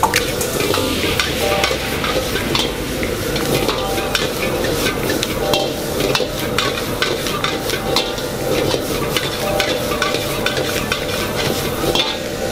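Vegetables sizzling in a hot wok as a metal ladle stirs and tosses them, the ladle scraping and clacking against the wok many times: stir-frying the vegetables for jjamppong.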